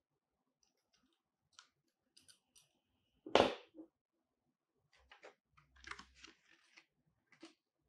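Small clicks of a plastic and metal light-mounting bracket being handled, then a single thud about three and a half seconds in as it is set down on a table. After that, paper cards rustle and tap as they are handled.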